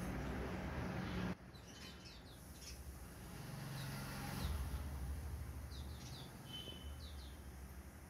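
House sparrows chirping: short, falling chirps in several quick clusters, over a low steady background rumble that drops away suddenly about a second in and comes back about halfway through.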